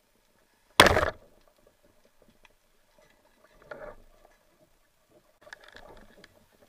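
A band-powered speargun fired underwater: one sharp, loud crack about a second in that rings out briefly. Fainter knocks and rattles follow twice, as the speared fish struggles on the shaft and line.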